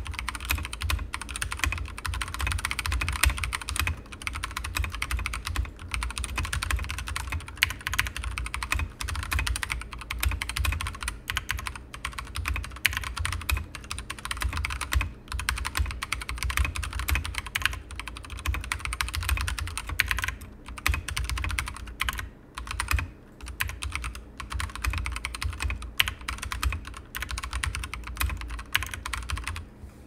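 Akko 3108 V2 full-size mechanical keyboard being typed on quickly: a dense, continuous clatter of keystrokes, with a few short pauses about two thirds of the way through.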